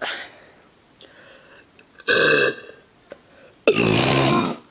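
A woman burping twice: a short burp about two seconds in, then a longer one of nearly a second near the end.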